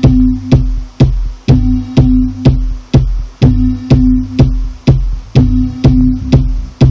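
Nord Rack 2X virtual analog synthesizer playing a repeating electronic pattern, with low bass notes and a held mid-range tone over a steady beat of about two hits a second.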